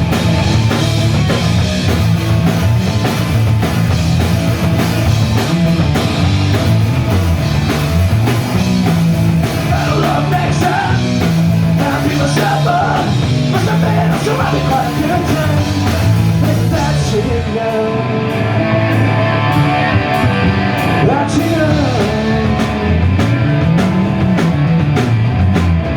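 Punk rock band playing live in an instrumental break between verses: electric guitar, bass and drums. The high end of the drums thins out about two-thirds of the way through.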